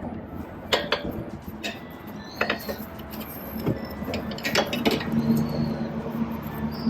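Scattered metallic clinks and knocks of tools and parts as an adjustable stabilizer link rod is fitted back onto the car's suspension. A low steady hum comes in about five seconds in.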